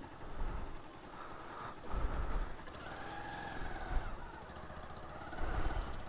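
Road traffic: vehicle engines passing, swelling into a low rumble about two seconds in and again near the end.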